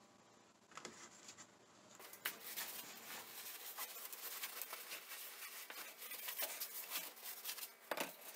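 Crinkly rustling and light clicking of a plastic gallon milk jug being handled and its screw cap turned on, starting about two seconds in.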